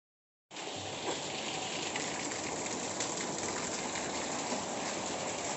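Heavy rain falling, a steady even hiss with faint scattered drop ticks, starting about half a second in.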